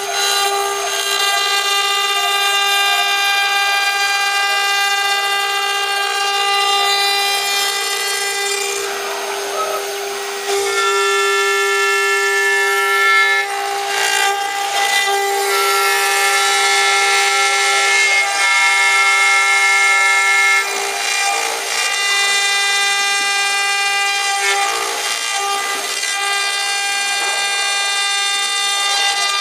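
The 1.5 kW spindle of a JCUT 1212A CNC router whines at a steady high pitch while its bit carves letters into a board. A rougher rasp of cutting rises over the whine now and then as the bit moves through the material.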